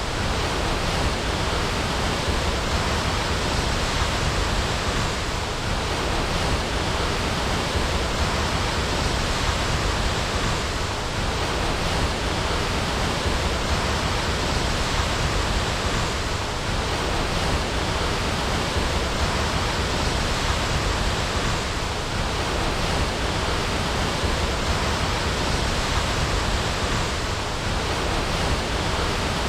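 Waterfall: water pouring and splashing in a steady, dense rush.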